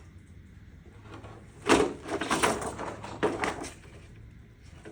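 Flexible PVC panel sections and a poster sheet being handled and fitted together: a sharp knock just under two seconds in, a short stretch of plastic rustling, then a click.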